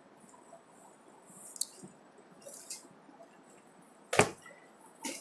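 Faint rustling as a heavy embroidered dress is handled and spread out over packed garments, with a few soft ticks and one sharp click about four seconds in.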